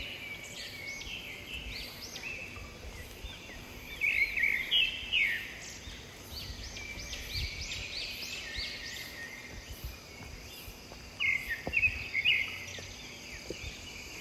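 Bird calls in a forest: several bursts of quick, high, rising-and-falling chirps, over a faint steady high drone of insects.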